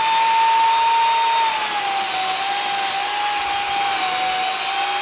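Electric chainsaw motor whining steadily at full speed as it cuts through a tree limb, its pitch dropping a little about a second and a half in as the cut loads it.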